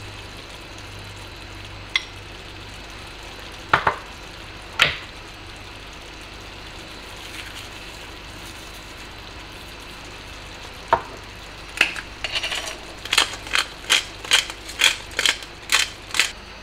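Bean and tomato sauce simmering quietly in a stainless steel frying pan, with a few sharp clicks of kitchen utensils. Near the end comes a quick run of about ten sharp taps, two to three a second, while seasoning and dried herbs go into the pan.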